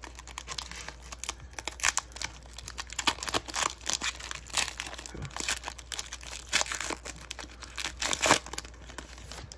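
Foil trading-card pack wrapper crinkling and tearing as it is pulled open by hand, in a long run of irregular crackles.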